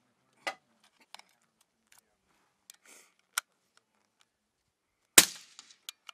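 Sharp metal clicks of rifle cartridges being handled and pressed into a box magazine, a few scattered clicks. About five seconds in comes one much louder sharp crack with a short fading tail, then two more small clicks.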